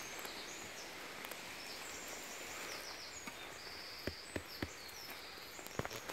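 Faint woodland ambience with a steady hiss and repeated high, thin chirps. A few soft clicks and rustles come about four seconds in and again near the end, as a hand brushes the pine-needle litter on the forest floor.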